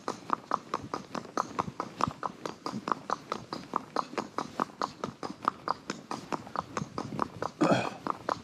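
Hooves of a ridden horse clip-clopping in an even run of sharp strikes, several a second. Near the end there is a brief, louder rush of noise.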